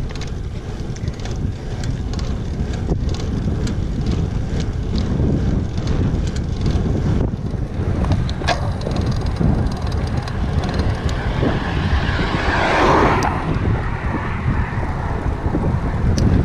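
Wind buffeting the microphone of a camera riding on a road bike, with the rumble of the moving bike on tarmac: a steady low roar with scattered short clicks, and a louder rushing swell about twelve seconds in.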